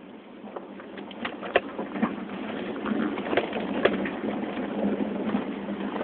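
Cab of a 2005 Toyota 4Runner crawling over big rocks in four-wheel low: a low steady rumble with many scattered knocks, clunks and creaks from the tyres and suspension working over the rocks, getting louder about two seconds in.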